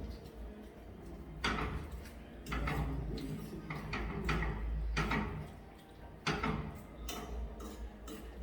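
A handful of separate knocks and clicks, spaced a second or two apart, from cookware and utensils being handled during cooking, over a steady low hum.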